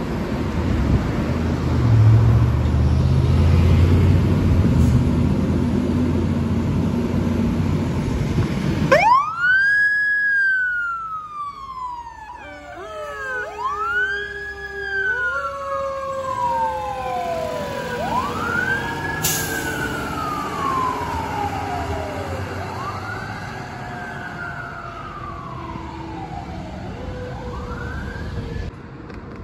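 Fire ladder truck's diesel engine running loudly as the truck pulls out. About nine seconds in, its siren starts wailing in long rise-and-fall sweeps, roughly every four and a half seconds, over a lower tone. The siren grows fainter as the truck drives away.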